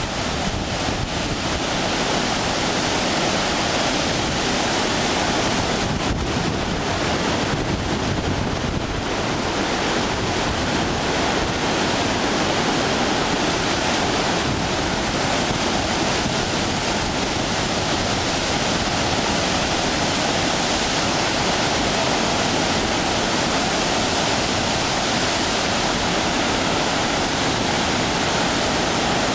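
Steady rush of floodwater released from a dam, the river below churning as a swollen, muddy torrent after heavy typhoon rain. A few gusts of wind hit the microphone in the first ten seconds.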